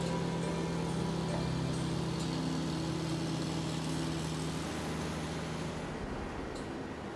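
Car engine running with road and tyre noise, heard from inside the cabin while driving. The engine's hum eases off about two-thirds of the way through.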